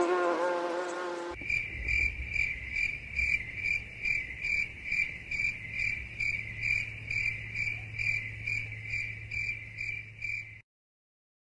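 A pitched buzz for about the first second. Then insect chirping: a high, even chirp repeated about three times a second, which cuts off suddenly near the end.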